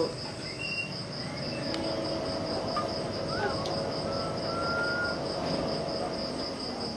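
Steady high-pitched insect trill, evenly pulsed, over a low steady hum, with a few faint short whistling notes in the middle.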